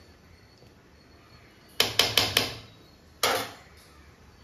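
A perforated steel ladle knocked four times in quick succession against the rim of an aluminium kadai, then one more clank about a second later.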